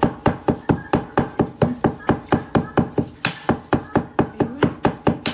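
A glass cup pounding mastic tears inside a plastic bag on the counter, a fast even run of knocks at about four a second, crushing the resin to powder.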